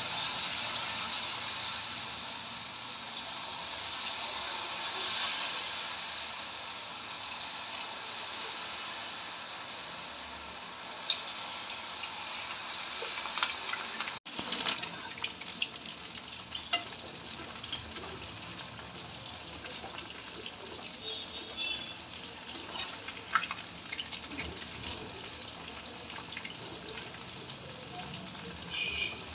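Battered mushroom pieces deep-frying in hot oil in a kadai. A dense sizzle eases off over the first half and gives way to a sparser crackle, with a few sharp clicks.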